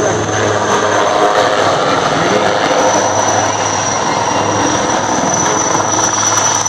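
HAL Rudra armed helicopter flying low past, its rotor and engine noise steady and loud, with a high whine held over it.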